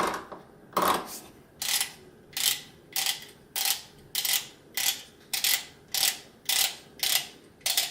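Grind-adjustment knob of a MiiCoffee PT1 portable coffee grinder being turned click by click through its detents, about a dozen sharp ratcheting clicks roughly every half second, toward the finest setting.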